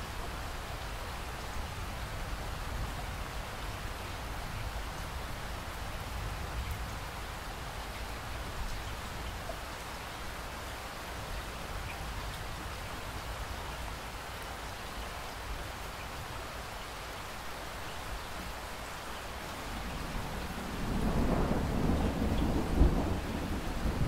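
Steady rain falling, with a low rumble underneath. Near the end a louder roll of thunder builds and rumbles on.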